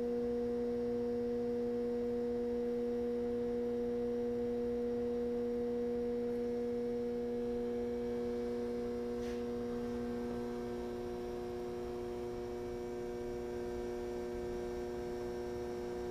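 Steady electrical hum of a fire alarm panel's electronics, a few pure tones at mains-hum pitches. Its pitch changes about two-thirds of the way through, and there is one faint tick about nine seconds in.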